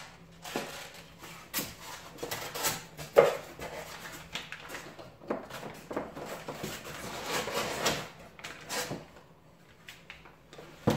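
Handling noises as a plastic-bodied airsoft rifle is worked out of its foam packaging insert: scattered rubbing, rustling and knocks, with a sharp knock about three seconds in.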